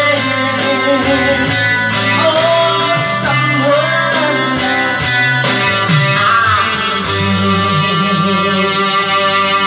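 A man singing into a microphone over recorded music with guitar; the guitar in front of him is not being played, so the accompaniment comes from a backing track.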